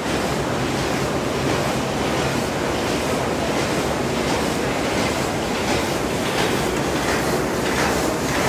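A 4-die 4-blow cold forging machine, a bolt and screw header, running at a steady pace: a dense, continuous mechanical clatter of repeated forming blows and moving transfer parts.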